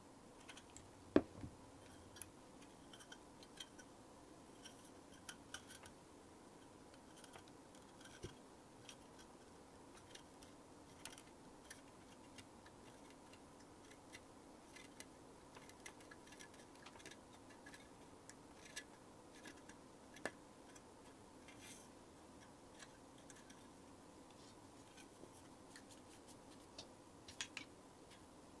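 Faint scattered clicks and light taps over a low steady hum, with a sharper knock about a second in and a small cluster of clicks near the end.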